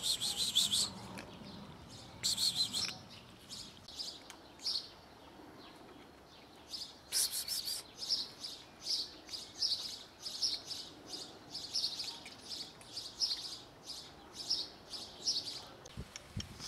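Small birds chirping: a couple of short bursts of high calls near the start, then a steady run of chirps about two a second from about seven seconds in.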